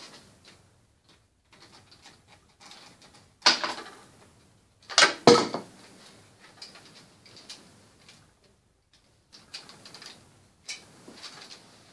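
A large Lego brick model crashing onto a carpeted floor: two sharp clattering impacts about a second and a half apart, the second the louder, as plastic bricks break off and scatter. A few light clicks of loose plastic bricks follow near the end.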